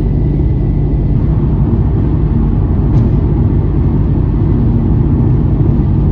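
Steady road and engine rumble inside an Infiniti G sedan cruising at highway speed, with a single short click about three seconds in.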